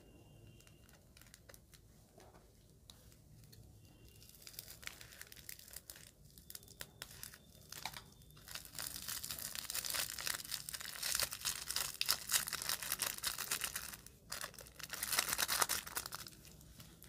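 Plastic piping bag crinkling as it is squeezed, with small white beads spilling out of its tip and pattering onto a glass dish. The crackling starts about four seconds in, is loudest through the second half, and pauses briefly near the end.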